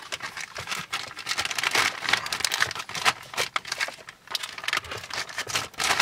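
Clear plastic bag crinkling and rustling in irregular bursts as it is handled to unwrap a new gear knob.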